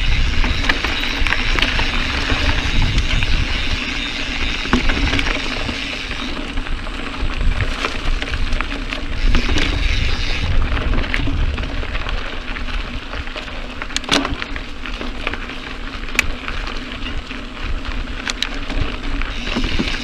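Mountain bike riding a dirt singletrack: tyres crunching over loose gravel, wind on the microphone, and scattered sharp knocks and rattles from the bike, the loudest about two-thirds of the way through.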